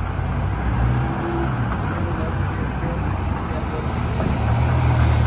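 Diesel engine of a GM Scenicruiser PD-4501 intercity coach running as the bus pulls slowly past, a steady low rumble that grows louder near the end as the rear engine bay comes alongside.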